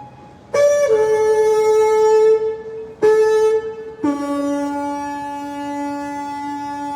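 Shofar (ram's horn) blown in long held blasts. It sounds two blasts on one note, then drops to a lower note about four seconds in and holds it.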